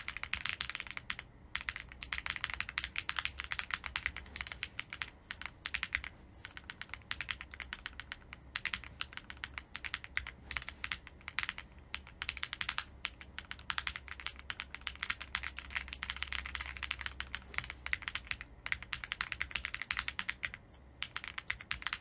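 Fast, continuous typing on an Owlab Link65 custom mechanical keyboard: a dense stream of key clacks, broken by a few brief pauses.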